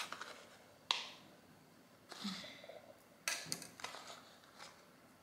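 Faint rustling and scraping of a serrated knife cutting and handling a banana bread loaf in a foil pan, with a few sharp clicks of the knife against the pan or the stone counter, the clearest about a second in.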